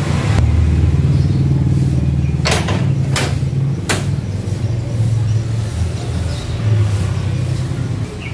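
A motor running with a steady low hum throughout, with three sharp clicks about two and a half to four seconds in.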